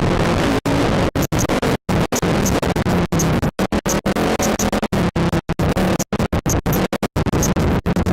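Loud music with a beat, chopped by many split-second cut-outs that give it a stuttering, scratch-like sound.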